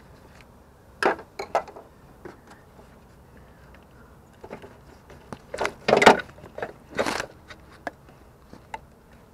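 Handling noise from hands working a rubber inverter coolant hose and its clamp: scattered clicks and knocks, with a cluster of louder scrapes and knocks about five to seven seconds in.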